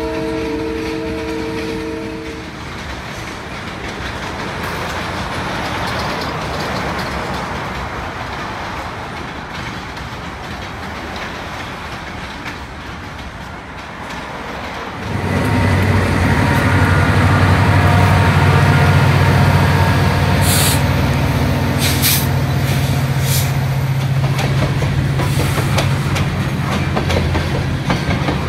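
A Canadian Pacific freight train rolls past. A locomotive horn chord sounds for the first two seconds, then the cars roll by with a steady noise. About halfway through, a much louder, deeper rumble begins as empty gondola cars roll by close up, with a few short, sharp sounds from the cars a little later.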